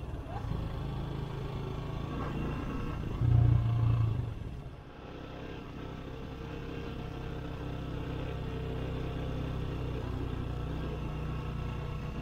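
Skygo Boss 150 motorcycle engine running steadily while riding, with a brief louder low surge about three seconds in.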